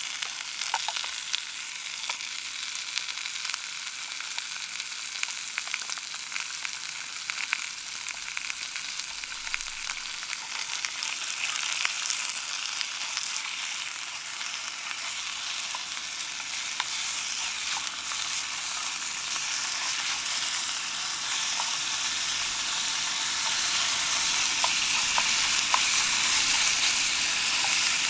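Thin slices of fatty pork sizzling as they fry in an aluminium mess tin, with small clicks of the utensil against the tin as they are stirred. The sizzle grows louder toward the end.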